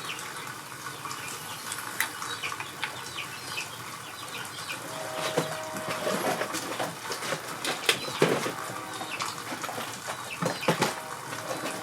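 Scattered light clicks and knocks of tools and metal engine parts being handled during a motorcycle engine teardown, over a low background hiss.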